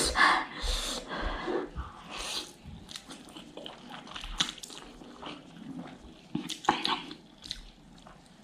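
A person eating noodles up close: chewing and slurping, with many short wet clicks, a few brief slurps and breaths in between.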